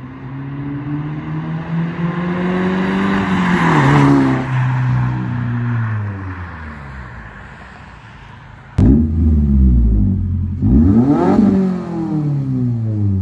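2022 Subaru WRX's turbocharged 2.4-litre flat-four, breathing through a non-resonated midpipe and muffler-delete axlebacks, accelerating past in second gear with a deep, slightly raspy exhaust note. The pitch climbs and is loudest as the car passes about four seconds in, then drops and fades as it pulls away. About nine seconds in it cuts to the car standing close by, revved sharply several times.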